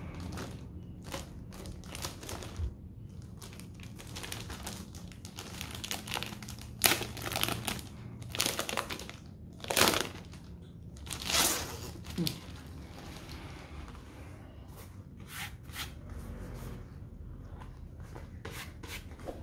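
Thin plastic bag crinkling and rustling in irregular bursts as it is handled and a laptop sleeve is pulled out of it. The crinkling is loudest in the middle, with lighter rustles near the end.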